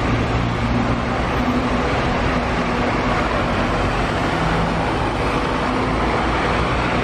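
Double-decker bus engine running steadily as the bus pulls away and turns, with a low engine hum under a noisy wash of street sound.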